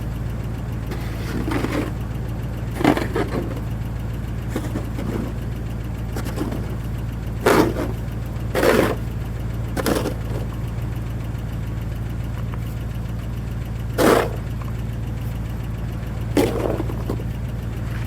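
Snow shovel scraping over a driveway in separate strokes, one every second or two with a longer gap midway, over a steady low hum.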